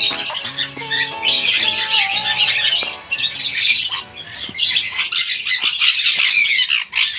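Sun conures screeching loudly in a rapid run of harsh, grating calls. Background music plays under them for roughly the first half.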